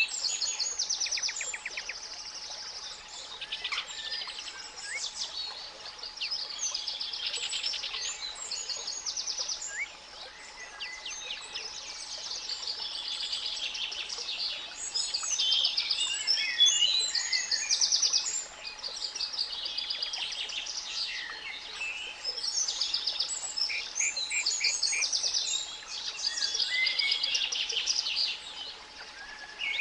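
Many spring songbirds singing at once: overlapping trills, chirps and whistled phrases that never pause. Underneath runs a faint, steady 852 Hz pure tone.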